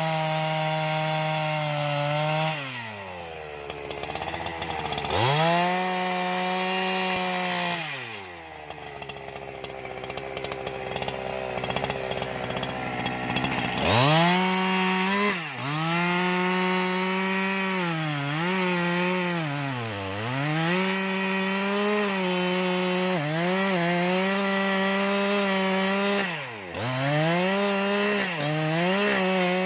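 Two-stroke chainsaw cutting into a mahogany trunk at full throttle. About two and a half seconds in it drops to idle, revs up once briefly, and idles again. About fourteen seconds in it goes back to full throttle and cuts, its pitch sagging several times as the chain bites into the wood.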